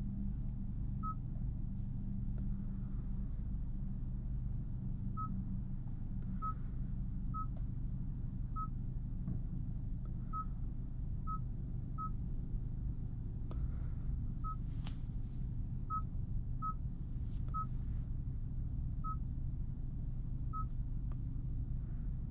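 About fourteen short, single beeps at one pitch, spaced irregularly, from the Genesis G70's controls as settings menus are stepped through. Underneath is a steady low hum from the car's 2.0-litre turbo four-cylinder idling, with a few sharp clicks near the middle.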